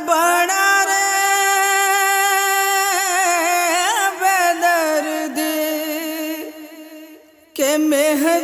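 Film song: a singer holds one long, ornamented note for about seven seconds. The note fades, and a new sung phrase begins near the end.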